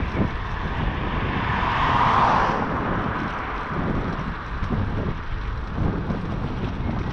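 Wind buffeting the microphone of a camera riding on a moving bicycle: a constant low rumble. About two seconds in, a rush of noise swells and fades, as a vehicle passing.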